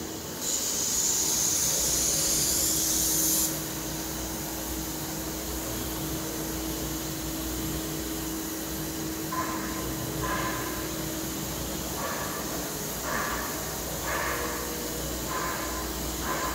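Circular knitting machine running: a steady hum with hiss, a louder rush of hiss for about three seconds near the start, and short irregular sounds in the second half.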